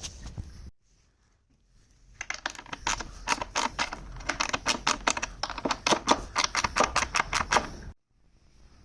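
A fast run of sharp clicks and taps, about five a second, from parts of a wooden table being fitted and fastened during assembly. It cuts off suddenly near the end.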